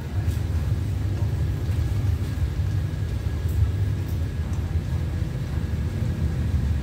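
Low, steady rumble of a diesel-electric locomotive idling at the head of a passenger train standing at the platform.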